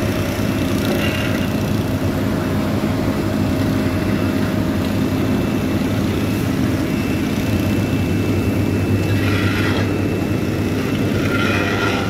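Asphalt paver's diesel engine running steadily at a constant speed, with a few brief scrapes from hand shovels and rakes working the fresh asphalt.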